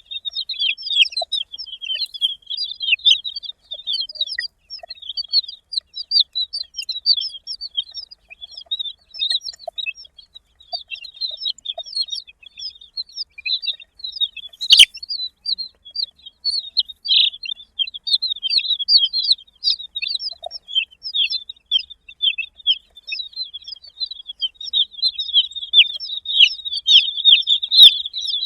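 A flock of baby chicks peeping continuously, with many short high chirps overlapping. There is one sharp click about halfway through.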